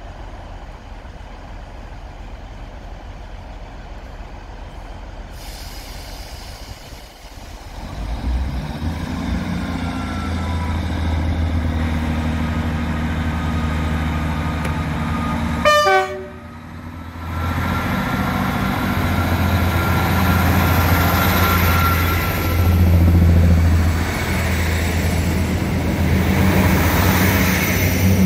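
Diesel multiple unit's engines running with a loud, low, steady hum as the train comes into and along the platform. The hum starts about eight seconds in and carries on, with a brief break about sixteen seconds in.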